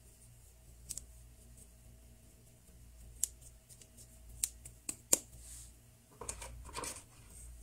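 Sharp clicks and ticks of a small plastic Play-Doh mould being handled and flexed as blue modelling dough is worked out of it, the loudest few coming about three to five seconds in. Softer rustling of the dough and plastic follows near the end.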